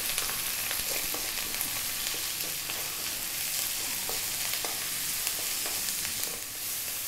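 Sliced onion, fresh curry leaves and garlic-ginger paste sizzling in mustard oil in a wok on high heat: a steady frying hiss. A wooden spatula stirs through them, with scattered light clicks and scrapes against the pan.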